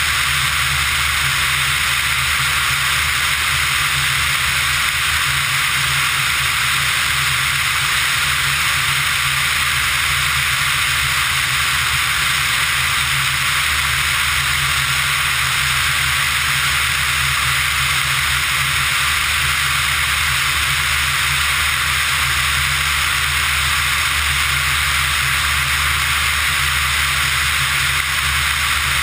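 Pipistrel Virus ultralight in steady cruise: a constant rush of wind over the tail-mounted action camera's housing with the engine and propeller droning low beneath it. The sound stays level and unchanging throughout.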